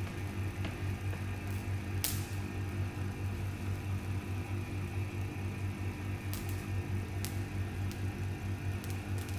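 Van de Graaff generator running: its motor and belt give a steady low hum. Several sharp clicks are scattered through it, the loudest about two seconds in.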